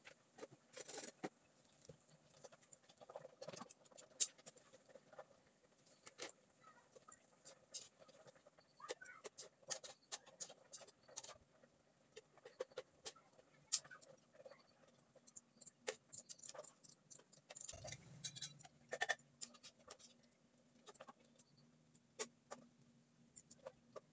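A pot of water boiling, with irregular small pops and clicks from the bubbling. A faint low hum comes in about three-quarters of the way through.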